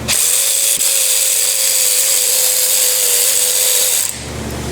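A power ratchet runs steadily for about four seconds with one even pitch, spinning out an ignition-coil hold-down bolt, then stops.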